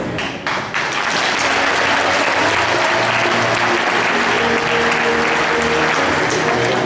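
Music stops and an audience breaks into sustained applause about a second in. Music starts up again under the clapping about halfway through.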